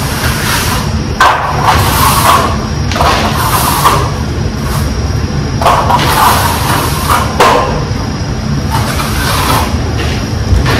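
Long steel trowel scraping and sliding across a fresh Type-S cement base coat on a wall, in separate strokes of about a second each, a stroke every two seconds or so.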